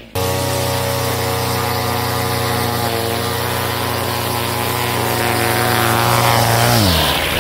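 Two-stroke string trimmer engine running at high, steady revs, driving an Edgit Pro blade edger along a concrete edge. It grows a little louder as it nears, and near the end the pitch drops sharply as the throttle is let off.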